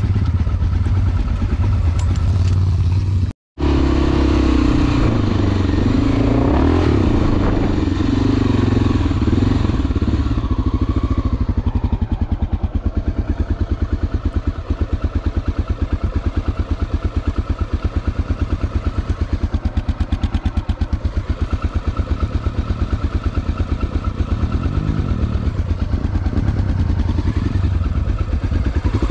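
Enduro motorcycle engine running while being ridden. The revs rise and fall through the first ten seconds or so, then settle into a steadier run. The sound cuts out completely for a moment about three seconds in.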